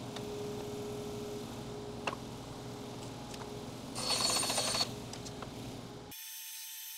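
Bandsaw running with a steady hum and a few light knocks. About four seconds in, its blade cuts through a wooden board for under a second. Near the end the sound switches abruptly to the high whir of an oscillating spindle sander.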